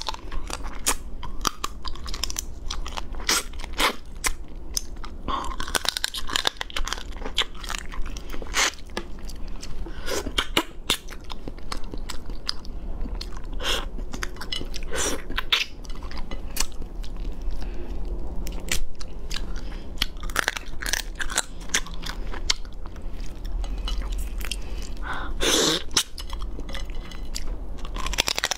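Close-miked eating of a soy-marinated raw crab: crab shell crunching and cracking between the teeth, with chewing, as a rapid irregular run of sharp crackles.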